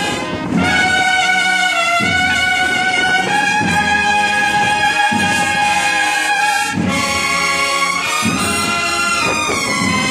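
A cornet-and-drum marching band (banda de cornetas y tambores) playing: massed valved bugles hold long notes of a march melody, changing pitch every second or two, over regular drum beats.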